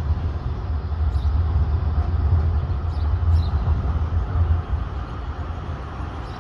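Blue-and-white Zurich tram coming along its street track, heard as a low, uneven rumble mixed with general street traffic.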